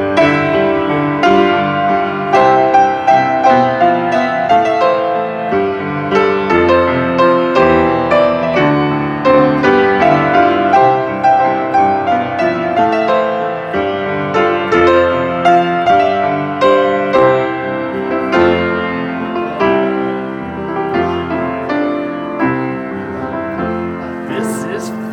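Steinway grand piano played solo, a slow, flowing piece of many sustained notes and chords, softer toward the end.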